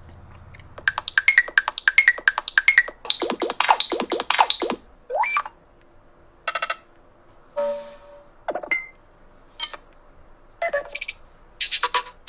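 Smartphone playing short electronic synth tones: a quick run of bright beeps and blips over the first few seconds, then single blips spaced out with pauses between them, like a ringtone or system sound.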